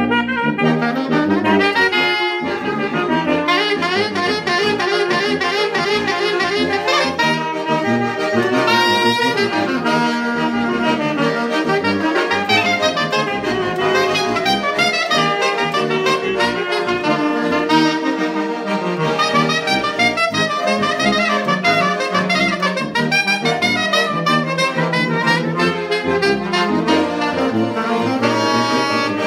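Small ensemble of tenor saxophone, soprano saxophone and accordion playing a lively tune together without a break, the saxophones carrying the melody over the accordion.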